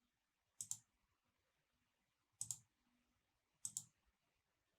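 Computer mouse button clicks, three times, each a quick pair of sharp ticks, with near silence between.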